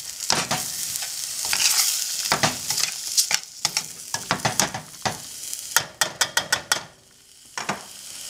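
Pasta and vegetables sizzling in a creamy sauce in a stainless steel pan, stirred with metal tongs that click and scrape against the pan. A fast run of clicks comes a little past halfway, then the stirring stops about seven seconds in and only a soft sizzle is left.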